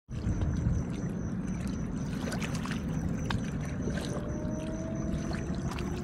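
Water of a small stream flowing and splashing over rocks: a steady rush with many small, quick splashes.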